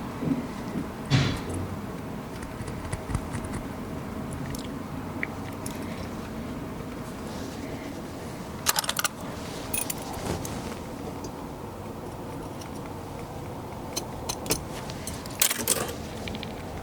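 Light metallic clinks and taps of metal tools and gold being handled on a goldsmith's bench, in a few short clusters over a steady background hum.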